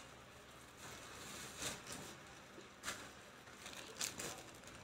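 Faint handling noise over quiet room tone: a few soft rustles and light clicks, roughly a second apart.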